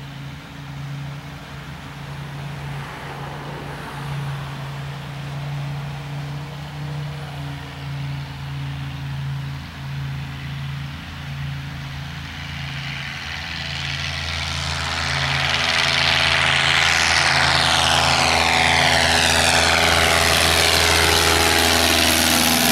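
Single-engine light propeller plane taking off: its piston engine and propeller running at steady takeoff power with a pulsing beat, growing much louder about two-thirds through as the plane lifts off and passes close overhead.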